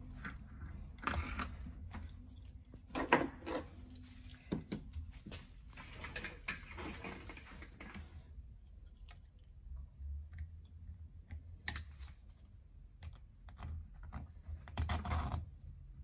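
Small metallic clicks and scrapes as a steel circlip is worked onto the splined gearbox shaft of an ATV with circlip pliers, snapping into its groove on the shaft.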